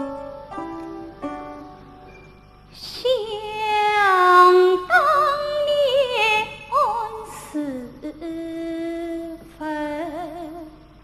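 A woman singing a slow Chinese song with wide vibrato over plucked-string accompaniment. Short plucked notes open it, and about three seconds in the voice enters, holding long wavering notes.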